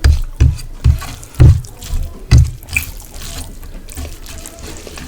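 Close-miked wet chewing of rice with fish curry, about two chews a second with low thuds, loudest in the first two and a half seconds and then softer.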